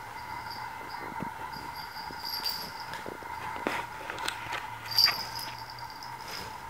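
An orange tabby cat and a Miniature Australian Shepherd play-wrestling: soft scuffling with scattered sharp clicks and knocks, the loudest a sudden one about five seconds in, over a steady high-pitched background tone.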